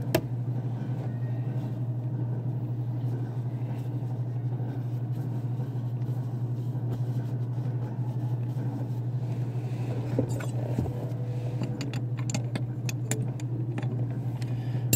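A steady low hum, with a scatter of light metallic clicks and clinks from about ten seconds in as tools and fingers work on the hydraulic hose fittings of a tractor's steering metering pump.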